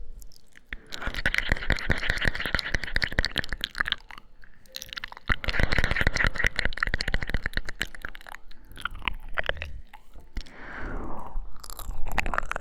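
Close-miked ASMR mouth sounds: rapid wet clicks and smacks of lips and tongue in two long runs, then a softer falling breathy sound and a last flurry of clicks near the end.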